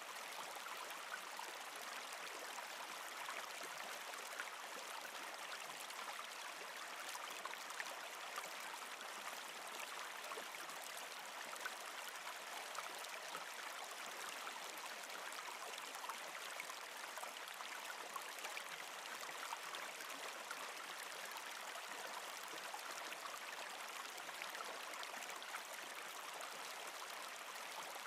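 Small rocky forest stream flowing, a steady, even rush of running water.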